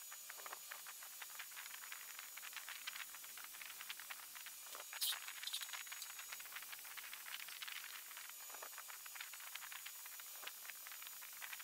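TIG welding arc on stainless steel sheet: a faint steady hiss with fine, continuous crackling as the torch fuses the seam.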